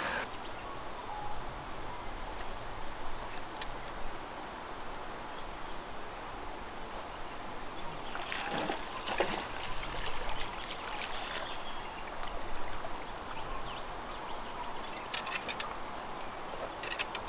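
Steady rush of flowing river water, with a bird repeating short, high calls that slide downward, about half a dozen in all. A few soft clicks and rustles come and go.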